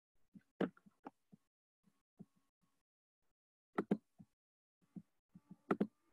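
Scattered short clicks and soft knocks, a few in quick pairs, typical of mouse and keyboard handling at a computer desk. Near the end a faint steady tone begins.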